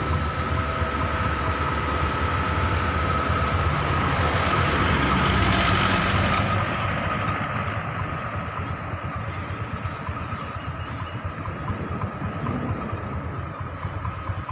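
Motor vehicle engine running with tyre and road noise, swelling to its loudest about halfway through and then fading, with a thin steady high tone underneath throughout.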